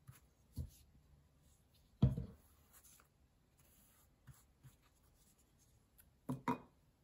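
Paper and brush handling on a work table while a cut paper strip is glued down with matte medium: faint rubbing and rustling of paper. A dull knock comes about two seconds in, and two quick knocks near the end.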